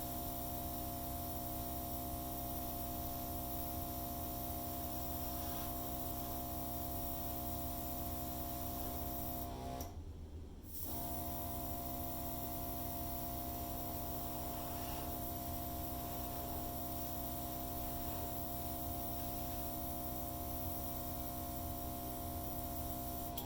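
Hairdryer running steadily, a motor hum with airflow hiss, as it blows acrylic paint across the canvas in a dutch pour. It cuts out for about a second around ten seconds in.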